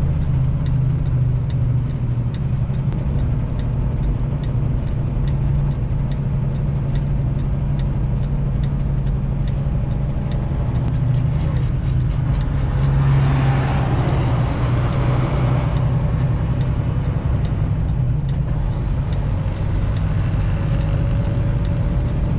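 Semi truck's diesel engine running steadily under way, heard from inside the cab, a constant low drone. About twelve seconds in, a rushing noise swells up and fades again after a few seconds.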